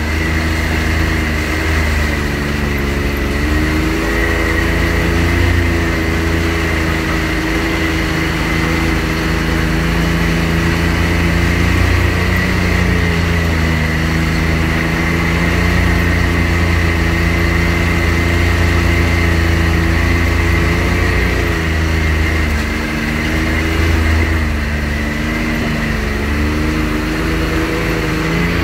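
The 2018 Can-Am X3 Turbo R side-by-side's turbocharged three-cylinder engine running as it drives along the trail. Its pitch rises and falls several times with the throttle, under a steady high whine.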